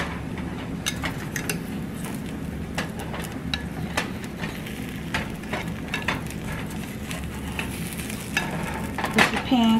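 Pancake batter sizzling steadily in an oiled non-stick frying pan, with scattered light taps and scrapes of a spatula against the pan.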